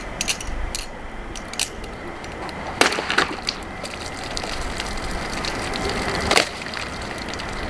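A balisong butterfly knife (Kershaw Moonsault) clicking lightly a few times as it is flipped, then two sharp cracks about three and a half seconds apart as the blade chops through bottles.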